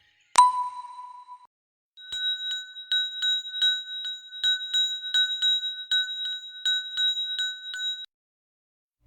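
A single bright ding that quickly fades, then after a short pause a bell rung rapidly and evenly, several strikes a second for about six seconds, stopping abruptly: a cartoon bell sound effect.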